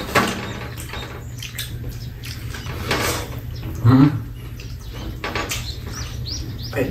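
Close mouth sounds of eating a shrimp burger: chewing and lip smacks, with a short voiced 'mm' about four seconds in.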